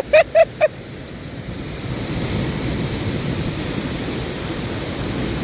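Steady rushing of a waterfall, getting louder about two seconds in and then holding level.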